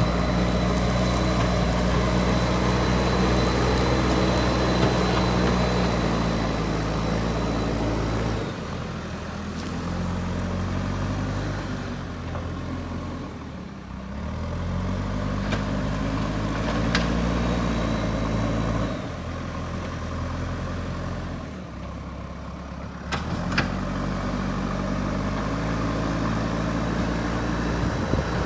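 JCB 3DX backhoe loader's diesel engine running under work, its pitch dropping and rising again several times as the load changes. A few sharp knocks come through, one about two-thirds of the way in and another near the end.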